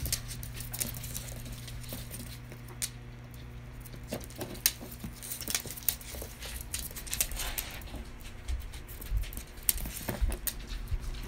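Dogs' claws clicking and scrabbling on a hard wood-look floor as two small dogs play and tussle, in irregular taps and scuffles over a steady low hum.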